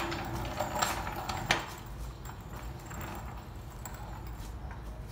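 Steel floor jack rolled across a concrete floor, its casters rumbling and rattling, with a sharp clank about a second and a half in.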